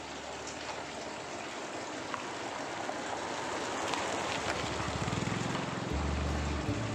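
Tap water pouring into a plastic basin of water, with splashing from hand-washing dishes. Background music with low notes comes back in near the end.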